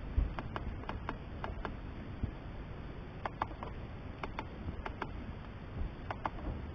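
Scattered sharp plastic clicks, several in quick pairs, over a steady low hiss: buttons being pressed on a handheld weather radio.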